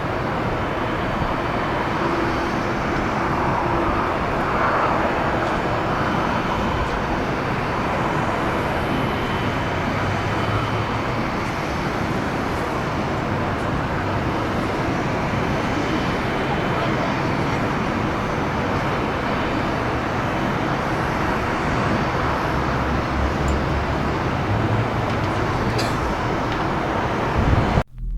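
Jet airliner engine noise, a steady, even rush that cuts off suddenly near the end.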